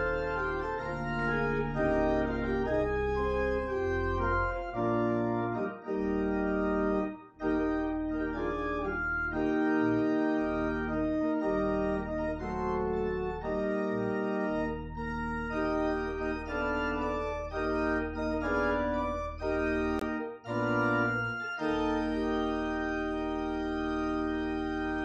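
Organ music: held chords over a sustained low bass, in phrases separated by short breaks.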